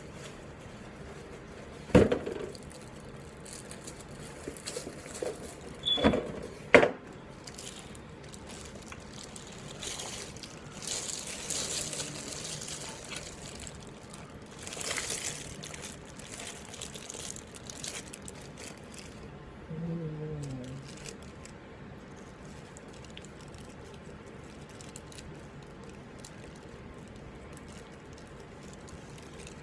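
Hand-handling noises while assembling computer parts: a sharp knock about two seconds in and two more around six and seven seconds, then a few bursts of hissy rustling and a short falling squeak.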